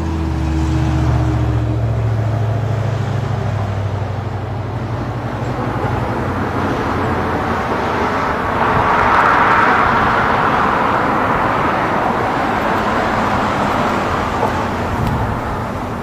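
Road traffic: a vehicle's low engine hum fades out over the first few seconds, then a car passes by, its tyre and road noise swelling to a peak about midway and easing off.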